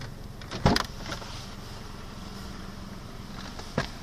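Pontiac Sunfire's four-cylinder engine idling steadily, heard from inside the cabin. Two sharp knocks break in, one under a second in and a fainter one near the end.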